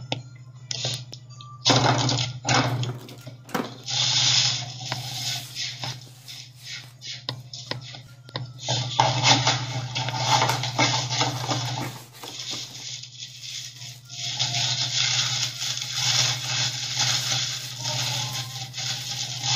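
Plastic toy wrapping crinkling and rustling as small parts are unwrapped by hand, in spells of a few seconds with short pauses between, over a steady low hum.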